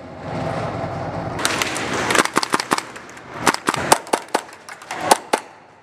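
Irregular sharp clicks and knocks, about a dozen, starting about a second and a half in over a steady rustling noise.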